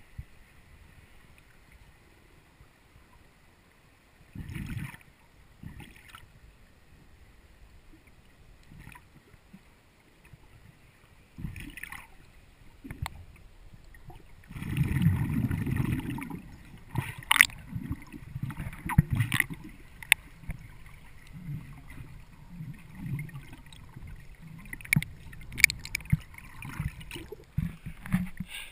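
Muffled underwater sound picked up by a swimmer's camera in its waterproof housing: dull surges of moving water and bubbles, the longest a little past the middle, followed by a run of sharp clicks and knocks.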